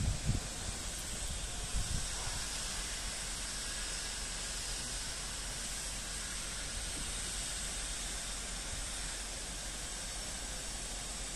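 Steady hiss, brightest in the high range, with a couple of soft low thumps in the first two seconds; no buzzing of the bees is distinct.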